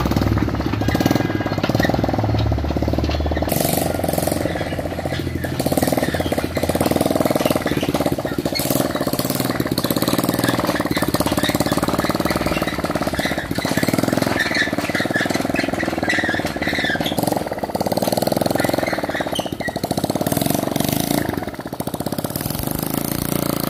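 Motorcycle engine running on a homemade jugaad vehicle, driven along under way. The sound changes about three and a half seconds in.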